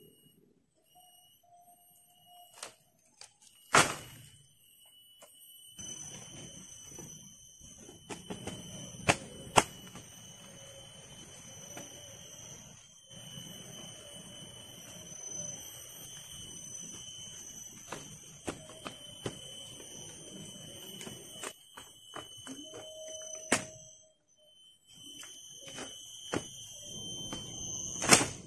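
A steady, high-pitched insect drone, with a few sharp knocks and a rustling, shuffling noise that starts about six seconds in.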